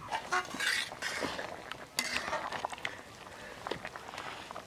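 A few light metal clinks and knocks from an aluminium lid on an iron karai, over the quiet bubbling of a curry simmering in the pan.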